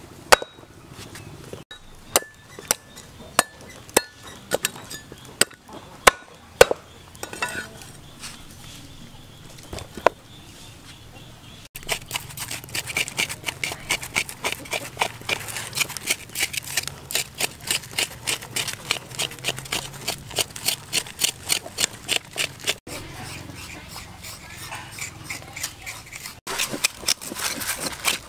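Scattered sharp knocks during the first twelve seconds. After that a metal spoon scrapes the burnt skin off a fire-charred joint in quick, even strokes, about three a second, easing off for a few seconds near the end and then picking up again.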